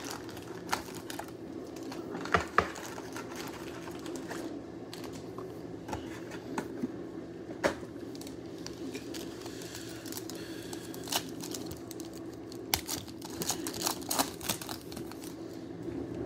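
Trading-card packs and their wrapping crinkling and tearing open, with scattered sharp clicks and taps as the cards are handled, over a steady low hum.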